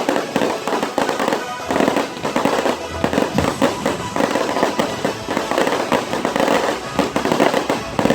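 Fireworks going off in a dense, continuous stream of crackling pops and bangs.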